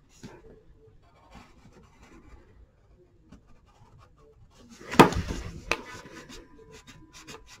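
Pencil scratching faintly on paper. About five seconds in there is a sudden knock, then the pencil's rubber eraser is rubbed hard against the paper.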